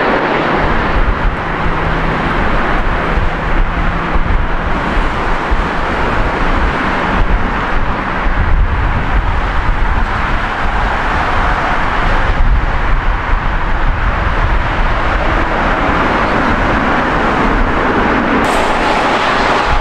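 Boeing 787 Dreamliner landing on a wet runway: a steady jet-engine roar that grows heavier and deeper around touchdown, about ten seconds in.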